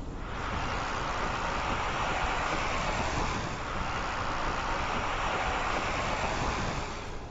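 Steady tyre and road rush of a Volkswagen ID. Buzz on the move, with no engine note, as it is an electric van.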